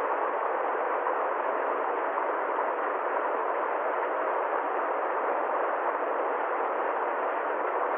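Steady, unchanging hiss-like noise with no separate events, even in level throughout, lacking both deep bass and high treble.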